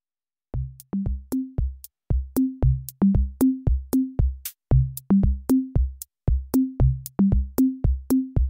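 Background music: an electronic drum-machine beat on its own, with no melody, coming in about half a second in after a brief silence and running at a steady, quick pulse of deep kick-like hits and higher pitched drum hits.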